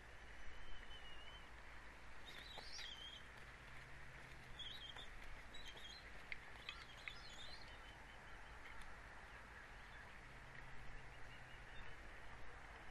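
Faint outdoor ambience with a steady low hum, and scattered high bird chirps and twitters: a short whistle near the start, then a cluster of chirps in the middle with a few faint ticks.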